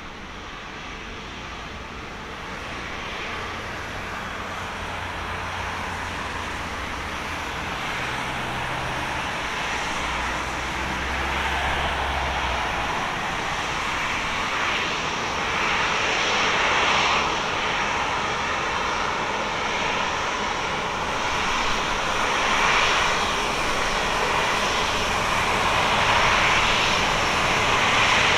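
Airbus A350-900's Rolls-Royce Trent XWB turbofans running at taxi power, growing steadily louder as the airliner approaches, with a high steady whine over the engine noise.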